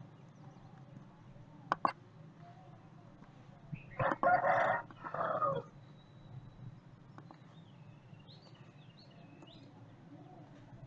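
A loud animal call about four seconds in, lasting about a second and a half in two parts. Just before it come two quick mouse clicks, and faint chirps follow later.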